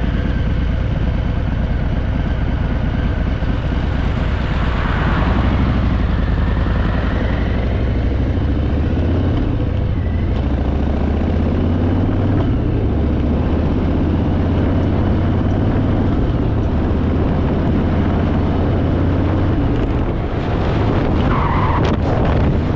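Harley-Davidson Fat Boy's V-twin engine running steadily while the motorcycle is ridden, with an even rush of road noise over it. The sound dips briefly about twenty seconds in, then picks up again.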